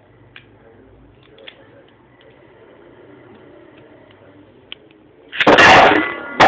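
Beyblade spinning tops whirring in a plastic stadium, with a few sharp clicks as they strike each other or the stadium wall. About a second before the end, a loud blaring noise lasts about a second.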